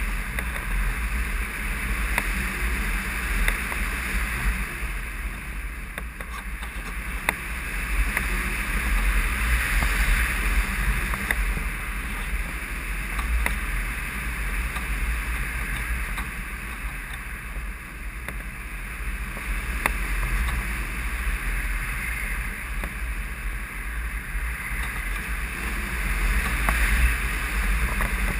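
Steady rush of wind over a radio-controlled model plane as it glides with its motor stopped, with a few faint clicks.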